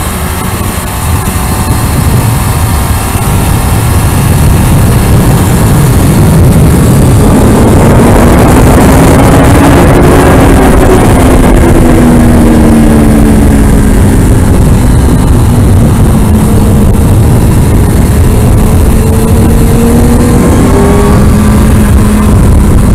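Kawasaki Ninja ZX-6R inline-four engine under way on a racetrack, heard through heavy wind rush on a helmet-mounted camera. Its pitch climbs from about seven seconds in as the bike accelerates, drops away around the middle, and climbs again near the end.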